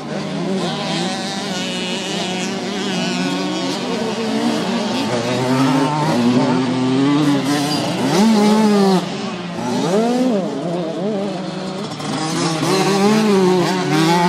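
Two-stroke engines of 65cc mini motocross bikes racing, revving up and dropping back over and over, with several bikes heard at once.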